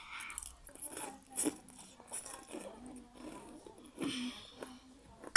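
A person chewing and biting food close to the microphone, with irregular wet mouth sounds and crisp crunches.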